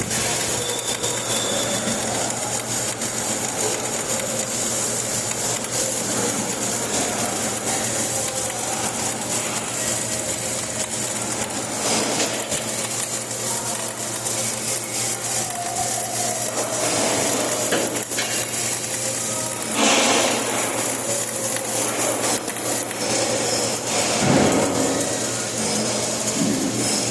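Flux-cored arc welding: the arc gives a steady crackling hiss, over a low steady hum.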